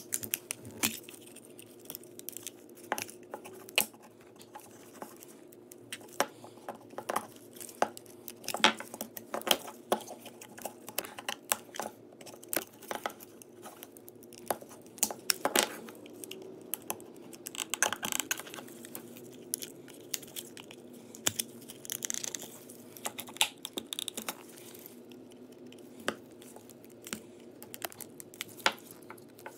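Flat-blade screwdriver prying at the seam of a weathered plastic Petrainer shock-collar housing: irregular sharp clicks, cracks and scraping as the blade works the case, over a steady low hum.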